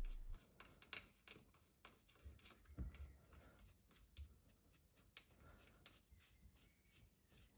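Near silence with faint scattered clicks and a soft low bump about three seconds in: fingers unscrewing the drain plug from the bottom of a hydrostatic transaxle as the oil begins to drip out.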